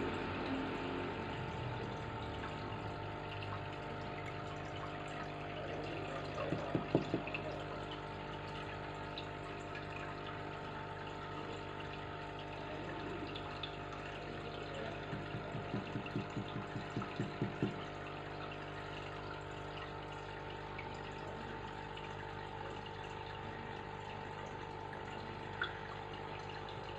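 Aquarium filter pump running: a steady motor hum with water trickling. Twice there is a short run of quick light knocks, the second growing louder over about three seconds.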